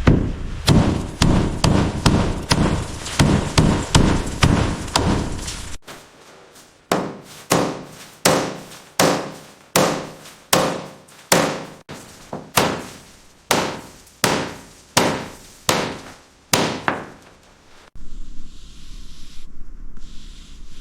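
Repeated hammer blows. There are quick, heavy strikes for about the first six seconds, then slower single blows that ring briefly, about one and a half a second. Near the end they give way to a quieter steady noise.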